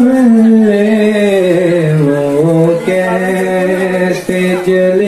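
A man reciting a naat, a devotional poem in praise of the Prophet, sung solo into a hand-held microphone in long held notes that glide slowly up and down, with a brief breath between phrases.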